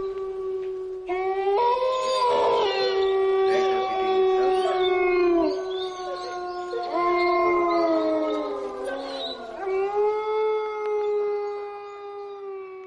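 Long, drawn-out howls from several voices overlapping, each held steady with slight glides in pitch, fading away near the end.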